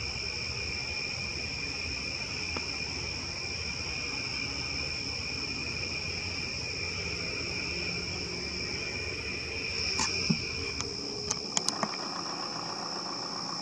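Steady outdoor chorus of night insects: a continuous high trill with a second, lower band beneath it. A few sharp clicks come near the end.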